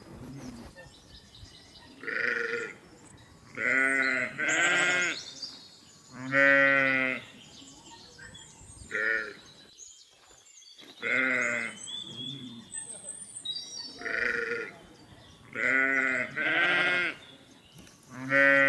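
A mixed flock of sheep and goats bleating: about ten separate wavering bleats, some in quick pairs, each lasting about half a second to a second, with quieter pauses between.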